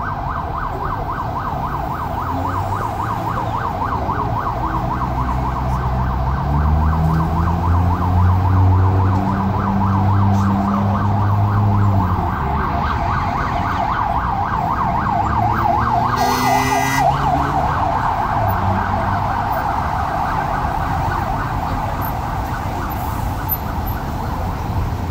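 Ambulance siren in a fast, continuous yelp, wavering rapidly up and down, with traffic engines running underneath.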